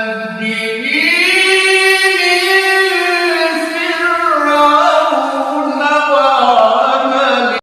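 A solo voice reciting the Quran in a melodic, chanted style, drawing out one long phrase with held and ornamented notes, which stops sharply near the end.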